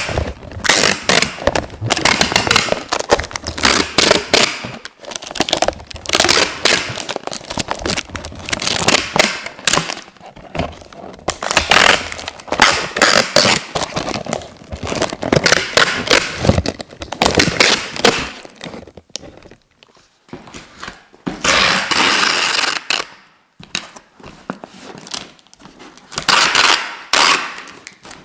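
Adhesive tape being pulled off its roll in repeated stretches of a second or a few seconds each, a dense crackling rasp. There are short gaps between pulls and a longer pause about two-thirds of the way through.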